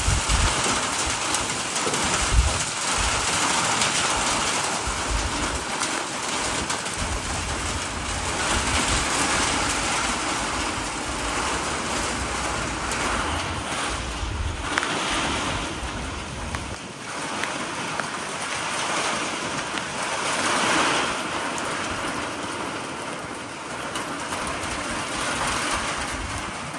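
Heavy monsoon rain pouring down with gusting wind: a steady hiss of rain, with wind buffeting the microphone in a low rumble that drops away about two-thirds of the way through.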